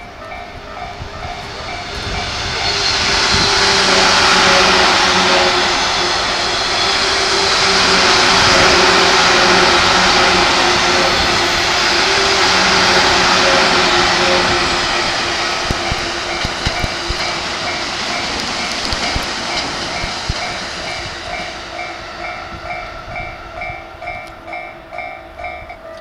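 Fifteen-car JR East 185 series electric train passing close by, its wheels running over the rails in a loud rush that builds over the first few seconds and fades away over the last ten. A level-crossing warning bell dings in a steady, even beat, drowned out while the train is closest.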